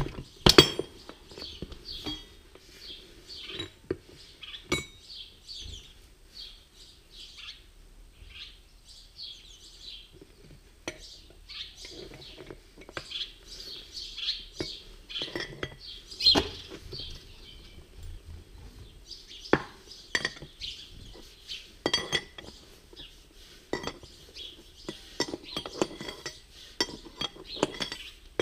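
Screwdriver scraping and knocking inside the steel bowl of an MTZ-2022.3 tractor's oil centrifuge rotor while it is being cleaned. Metal clinks and knocks come at irregular intervals, the loudest just under a second in.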